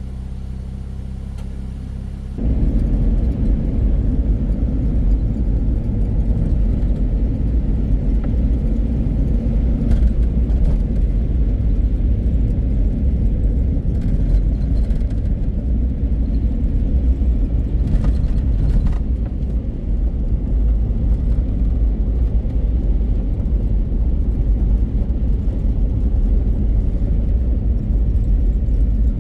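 Car driving, with a low, steady rumble of road and wind noise that turns suddenly louder about two seconds in.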